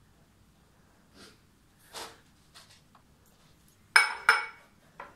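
Soft handling rustles, then two sharp, ringing clinks of a small drinking glass set down among other glasses about four seconds in, a third of a second apart, with a lighter knock near the end.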